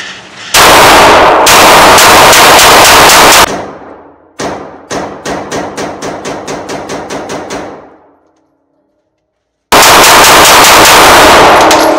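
Rapid handgun fire in an indoor range, loud enough to overload the recording. A dense burst of shots is followed by a string of about five shots a second that fades away, then a cut to dead silence and another loud burst of fire near the end.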